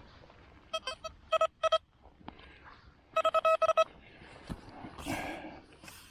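Metal detector beeping in short pulses at one fixed pitch, in three quick clusters, signalling a buried metal target. About five seconds in there is a brief rustling scrape.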